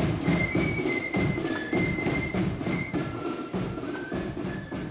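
Marching flute band playing a high flute melody over steady snare and bass drum beats, growing fainter as the band moves away.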